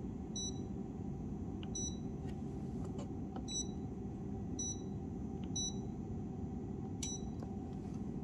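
Key-press beeps from a UNI-T UTG1005A function generator as its number keys and soft keys are pressed to enter values: six short, high beeps about a second apart, over a steady low hum.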